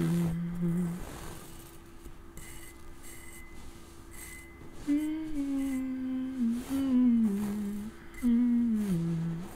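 A man humming a slow, soft melody with his lips closed. He holds one low note at the start, pauses for a few seconds, then hums a phrase that glides gradually down in pitch.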